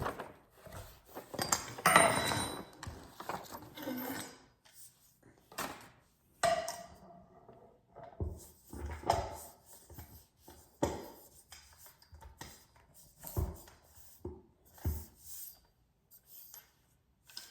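Parts of a clothing rack being handled and fitted together during assembly: irregular knocks, scrapes and rubs, busiest about two seconds in, then scattered separate knocks.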